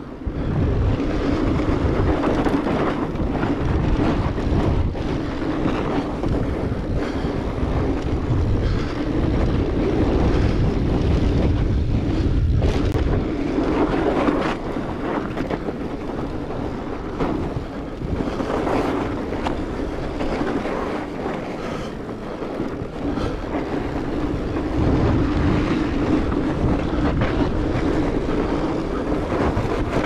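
A Rocky Mountain Blizzard 20 fat bike rolling on studded Vee fat tires over packed snow, with wind buffeting the microphone. Under a steady low hum there are scattered small knocks and rattles as the bike goes over bumps.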